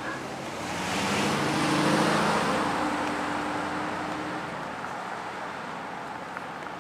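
A car driving past, its engine and tyre noise rising to a peak about two seconds in, then slowly fading away.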